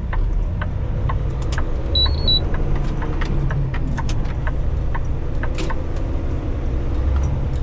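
Semi-truck's engine rumbling steadily as the truck drives, with scattered rattles and clicks in the cab and a short high beep about two seconds in.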